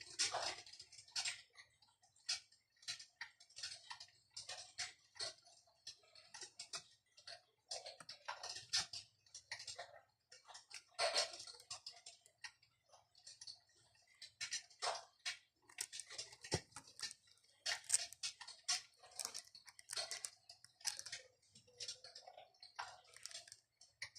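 Irregular crackling and popping like burning logs, several pops a second and uneven in strength, over a faint low hum, plausibly the electric fireplace's imitation-fire crackle sound.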